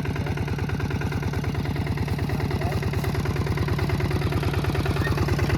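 Mini tractor's engine running steadily with an even, rapid chugging beat, growing slightly louder near the end.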